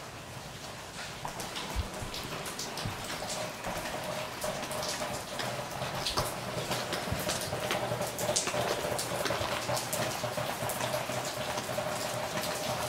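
Rain falling, with many irregular sharp drips landing on wet surfaces, the patter growing gradually louder.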